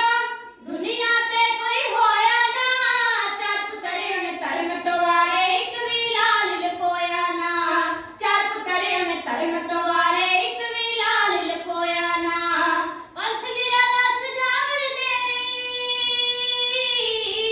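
Two children singing kavishri, the Punjabi ballad style, in long sweeping lines with short breaks for breath between verses. No instrument is heard; the harmonium is not played.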